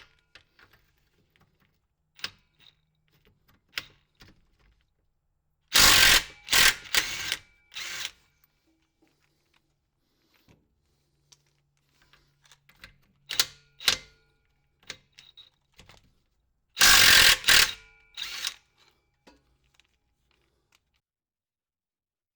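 A power tool running on bolts in two loud runs of about two seconds each, some eleven seconds apart, with light clicks and knocks of tools and hardware between: bolts being loosened while the exhaust is taken off the car.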